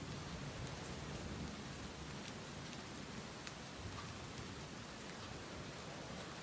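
Steady rain with scattered crisp drop ticks over an even hiss, and a low rumble underneath, strongest in the first second or so.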